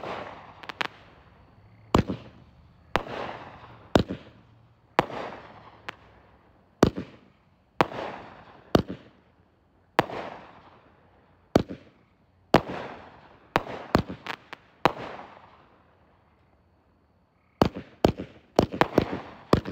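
Multi-shot aerial firework cake firing shot after shot: a sharp bang about once a second, each followed by a fading crackle. After a short lull, a quick cluster of bangs comes near the end.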